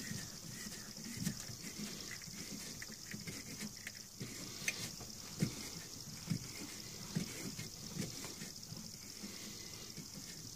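Faint, irregular clicks and knocks from a wooden bowl blank being handled and seated in a lathe's metal chuck by hand, over a steady faint hiss.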